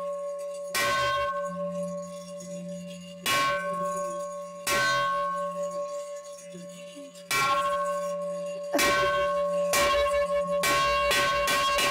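A village bell struck by hand, each strike ringing on: single strikes one to two and a half seconds apart, speeding up to rapid strikes near the end. It is the first round of a three-round bell call summoning the villagers to gather.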